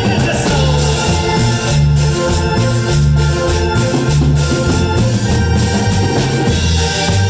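Instrumental cumbia: a bouncing bass line and electronic organ keyboard over percussion, with no singing.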